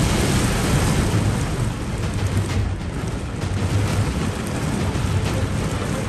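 Heavy rain pouring down in a thunderstorm, a dense steady hiss over a strong low rumble.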